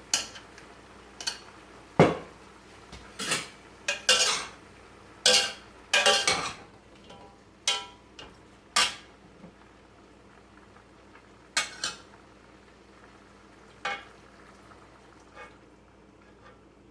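A cooking utensil clinking and scraping against a pan as stir-fry vegetables in a thickening sauce are stirred. The strokes are irregular, coming often for the first half and only now and then after that.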